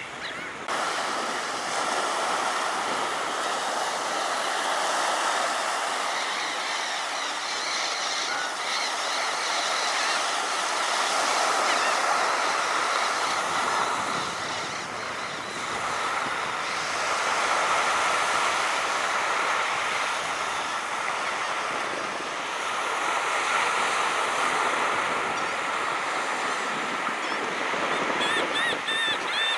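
Surf washing onto the beach as a steady rushing wash that swells and eases every few seconds, with a few short bird calls near the end.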